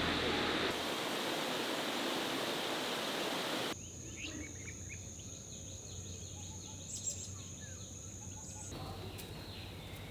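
Steady hiss of heavy rain that cuts off abruptly a little under four seconds in. A quieter outdoor background follows, with a steady high-pitched insect drone and scattered short bird chirps.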